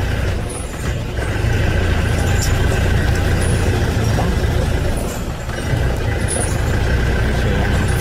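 Mahindra Marshal SUV's diesel engine running steadily, a low rumble heard from inside the closed cabin.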